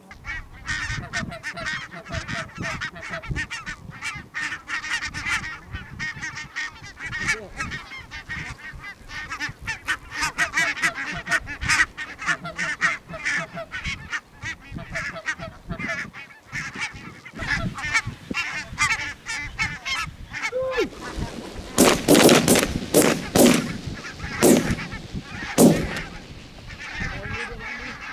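A large flock of barnacle geese calling without pause, a dense chatter of overlapping calls. About three quarters of the way through, a quick volley of several shotgun shots goes off over some four seconds.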